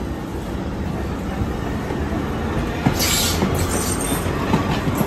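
Vintage New York subway train running on the rails with a steady rumble that builds slightly. A few sharp clicks from the wheels come over rail joints in the second half, and there is a brief hiss about three seconds in.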